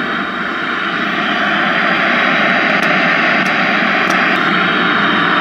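RCA Victor tube black-and-white portable TV's speaker hissing steady, loud static from an untuned channel as the channel selector is turned, with a few faint ticks through it.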